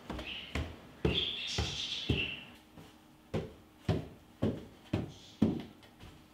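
Footsteps climbing wooden stairs: a run of thuds about two a second, with a pause of about a second near the middle. A high squeak lasting about a second comes about a second in.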